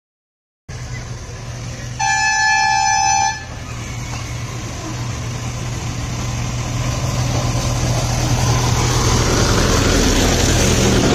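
A miniature passenger train, styled as a diesel locomotive, sounds one steady horn blast of about a second and a half. Its engine hum and wheel rumble on the track then grow steadily louder as it approaches and runs past close by.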